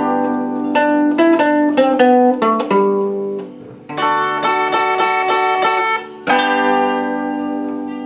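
Concert zither played with a thumb pick: a plucked melody on the fretted strings over ringing accompaniment notes, then a run of quickly repeated chords in the middle and a struck chord left to ring near the end.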